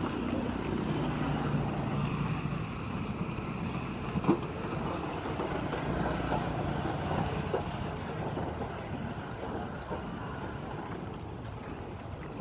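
Road traffic passing: motorcycle and truck engines running, with a steady engine hum in the first few seconds. The traffic noise eases off toward the end.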